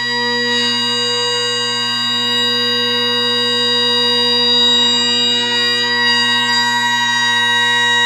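Great Highland bagpipe sounding: the drones hold a steady, unbroken low tone with the chanter sounding above it.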